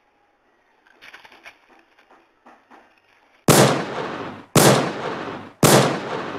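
Three loud gunshots about a second apart, each starting sharply and fading with a short echo, after a few seconds of faint rustling.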